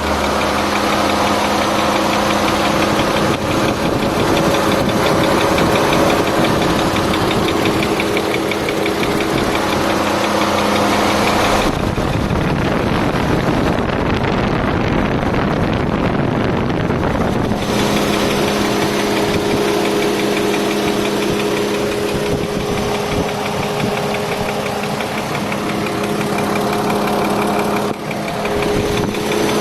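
Mercedes-Benz M112 3.2-litre V6 engine running steadily with a knock. Between about 12 and 18 s the even engine tone gives way to a rougher, noisier sound before returning.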